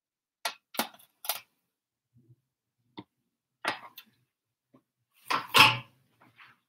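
Dishes being handled on a kitchen counter: a few light clicks and taps, then a louder two-part clatter about five and a half seconds in, as a white serving tray is moved and set down.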